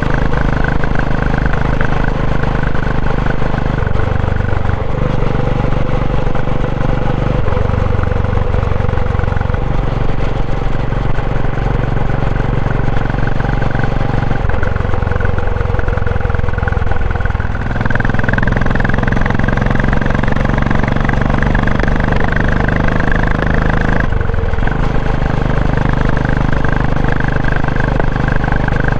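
Royal Enfield Classic 500's single-cylinder four-stroke engine running under way. Its note shifts up and down several times with throttle and speed. Mixed in is a mechanical running noise carried through the frame to the mic, which the rider puts down to the chain, gearbox or something else.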